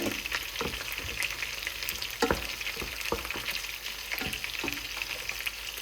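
Coconut sauce sizzling in a pan on the stove, with a utensil stirring it and knocking against the pan several times.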